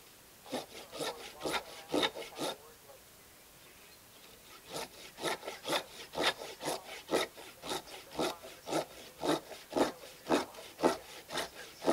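Hand saw cutting through a dead olive branch: quick back-and-forth strokes, about three a second, stopping for about two seconds after the first few and then going on.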